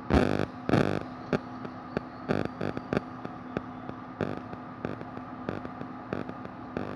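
Handling noise: a scatter of short clicks and knocks over a steady low hum, with two louder, longer rustling knocks in the first second.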